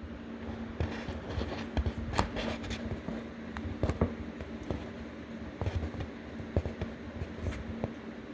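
Small flathead screwdriver scraping and picking soft contact-cement glue out of a speaker cone joint, with irregular short scrapes and clicks.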